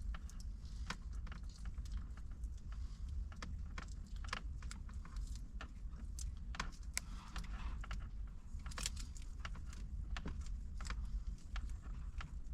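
Hands working a dash-cam cable and its tape: a run of irregular light clicks and crackles with no steady rhythm, over a low steady hum.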